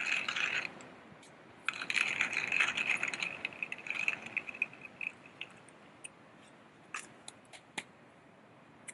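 Coffee beans crunching in a grinder: a spell of grinding that stops under a second in, a second spell about a second later that lasts some three seconds and tails off, then a few scattered clicks.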